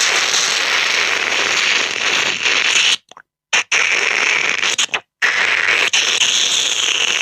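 Beatboxer imitating an object's hissing, crackling noise with the mouth: a loud, steady hiss broken by two short breaks, about three seconds in and about five seconds in.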